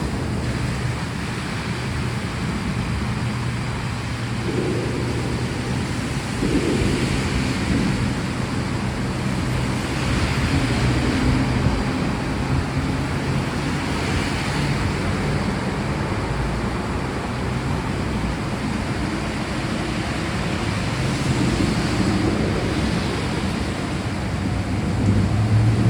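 Steady rain, a continuous even hiss, with a low rumble underneath that grows louder near the end.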